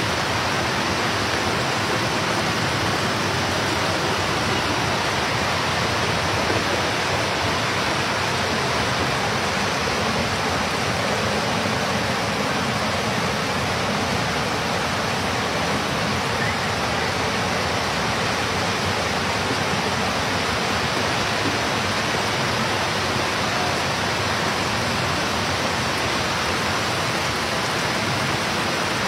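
Muddy floodwater rushing through a street in a torrent, a steady, even rush of water that does not let up.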